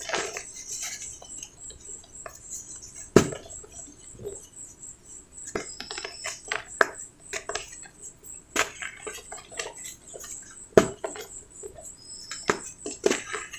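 Dry cement balls crumbled and snapped by hand into cement powder: soft gritty crunching and trickling, broken by sharp cracks as lumps break, the loudest about three seconds in and again around nine and eleven seconds.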